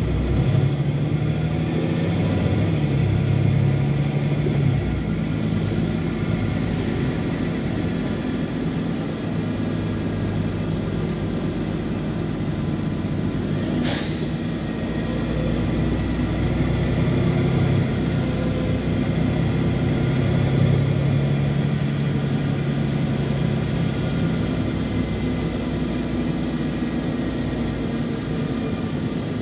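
Inside a LiAZ 5292 city bus under way: the diesel engine hums under steady road noise, its pitch dropping and rising again as the bus changes speed. There is one sharp click about halfway through.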